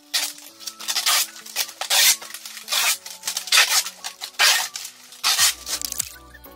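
Packing tape being pulled off the roll and wrapped around a plastic-wrapped bundle, in a series of short loud rips about once a second, over soft background music whose bass line comes in near the end.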